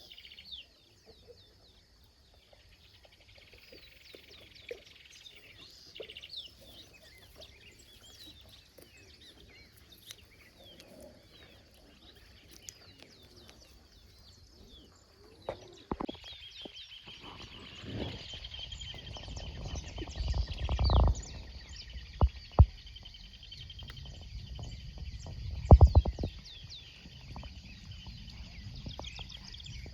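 Wild birds chirping and calling, with many short calls and whistles overlapping. From about halfway there is low rumbling with several sharp knocks, the loudest two near 21 and 26 seconds.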